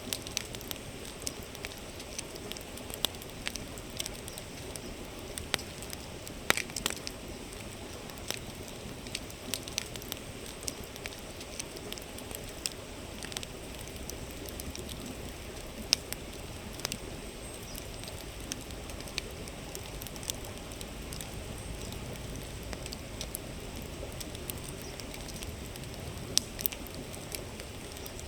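Wood campfire crackling, with sharp irregular snaps and pops, a few of them louder, over the steady rushing murmur of a flowing river.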